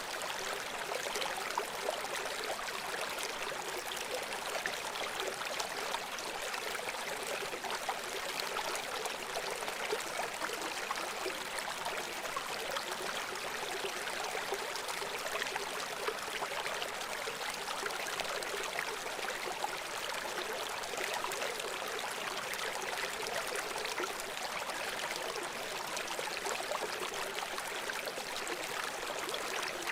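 River water flowing and splashing over rocks: a steady, even rush with no change in level.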